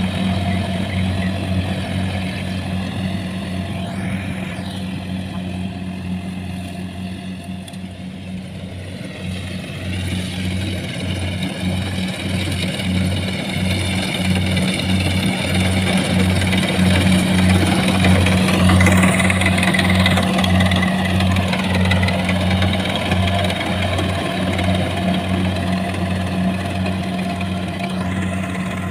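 Kubota rice combine harvester running while cutting rice: a steady diesel drone with an even pulsing low hum, and a higher whine that wavers in pitch.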